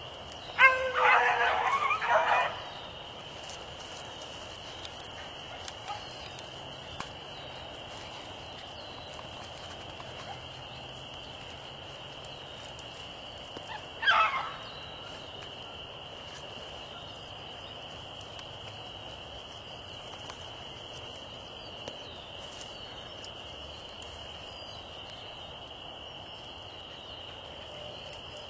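Beagle hound giving voice: a burst of quick, choppy baying about a second in, then a single drawn-out bawl falling in pitch around the middle. A steady high-pitched whine runs underneath throughout.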